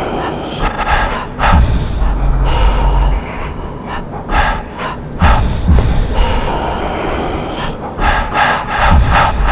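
A man's loud, strained gasps and vocal outbursts in short bursts, over a deep rumble that comes and goes.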